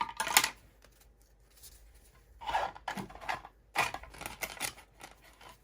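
3D-printed plastic grit divider tab and mouse-sander sanding sheets handled and slid into a plastic storage box: scattered clicks and rustles, a cluster at the start and more from about two and a half seconds in.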